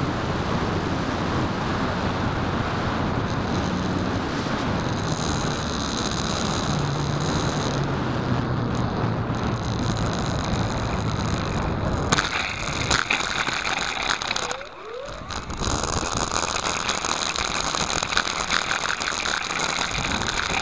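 Wind rushing over the onboard camera of a radio-controlled Edge 540 model plane flying low, with a faint high motor whine. About twelve seconds in it touches down and rolls over rough grass with a continuous crackling rattle that briefly drops away once.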